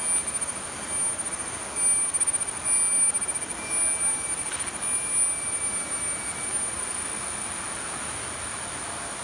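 Forest insects (cengkerik) shrilling in a steady high-pitched chorus, pulsing quickly for the first several seconds and then holding steady. A second, lower insect tone and a steady hiss run underneath.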